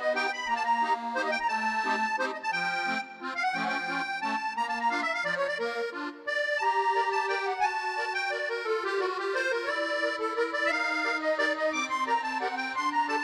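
Instrumental intro theme music: a melody of held notes over a lower sustained line, with a brief dip about six seconds in.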